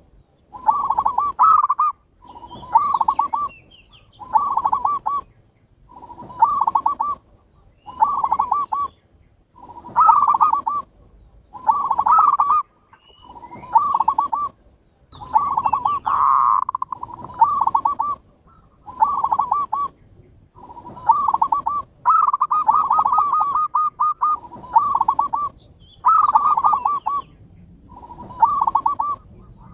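Zebra doves (perkutut) cooing: a steady series of rippling coo phrases, each about a second long, repeating roughly every one and a half to two seconds.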